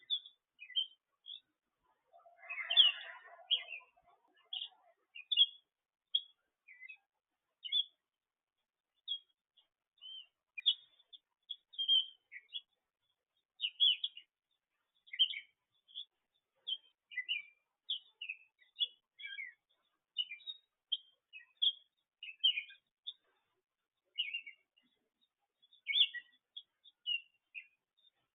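Birds chirping: many short, high chirps in quick succession, with a louder, lower burst of sound about three seconds in.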